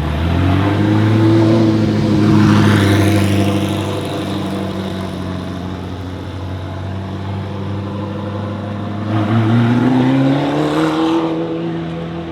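Ferrari F40 LM's straight-piped twin-turbo V8 running. The revs climb at the start, hold steady for several seconds, rise again about nine seconds in, then ease off near the end.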